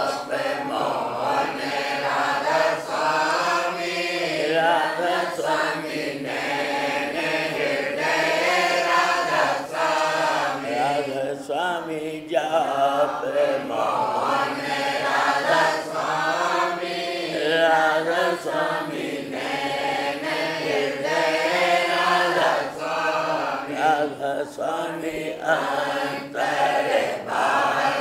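Voices chanting a devotional Radhasoami chant, the name 'Radha Swami' sung over and over.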